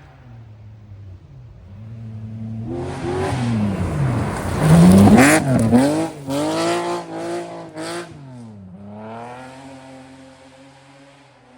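Historic rally car approaching and passing at speed, its engine pitch rising and falling several times under hard revving, loudest about five seconds in. It then fades as it accelerates away.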